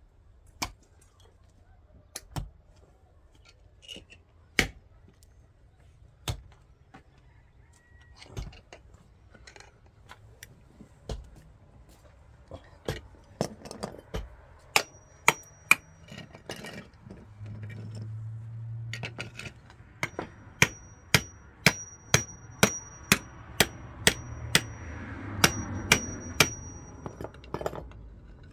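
A pickaxe striking hard earth about every two seconds. In the second half a hand hammer strikes metal on a wooden tool handle in quick runs of about two blows a second, many with a bright metallic ring.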